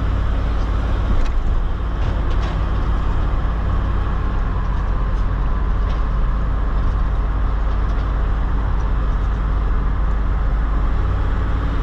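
Steady engine and road drone heard inside a moving vehicle's cab while towing, with a heavy low rumble and a few faint rattles.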